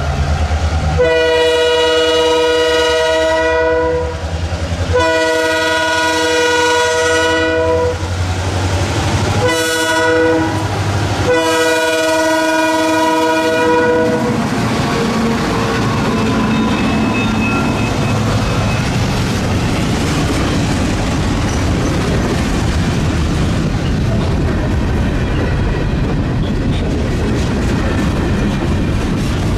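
Freight train's diesel locomotive horn sounding the grade-crossing signal, two long blasts, a short one and a final long one, followed by the train rolling past with steady wheel rumble and rail-joint clicking.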